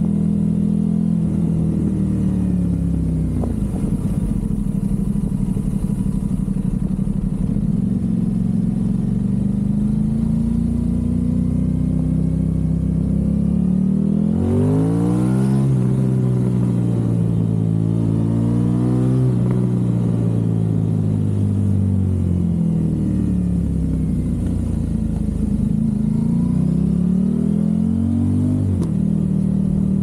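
Aprilia RS660's parallel-twin engine through a low-mounted Mivv Delta Race exhaust, heard from on the moving bike. It cruises steadily, drops in pitch as the throttle is rolled off a few seconds in, then pulls hard about halfway through in two rising runs with upshifts, eases off again and picks up once more near the end.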